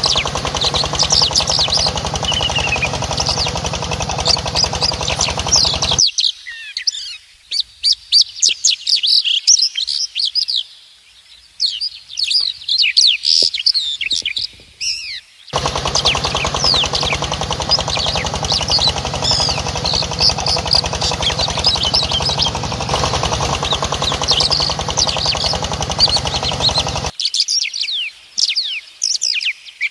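Many small birds chirping rapidly and continuously, over a steady motor hum that runs for about the first six seconds, stops abruptly, then starts again about halfway through and runs for around eleven seconds before cutting off.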